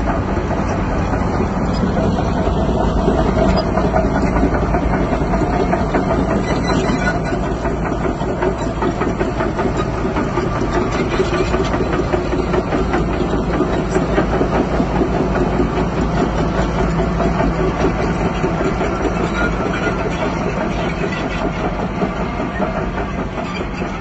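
Bulldozer's diesel engine running steadily under load.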